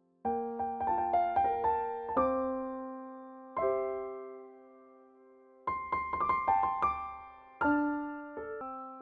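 Background piano music: quick runs of notes in two bursts, with single chords that ring and fade in between.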